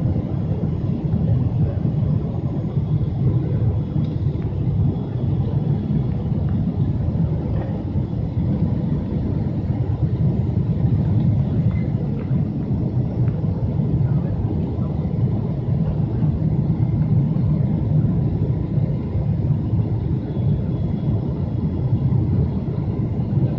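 Steady low rumble of a jet airliner's engines and rushing air, heard inside the passenger cabin while the plane is on its approach to land.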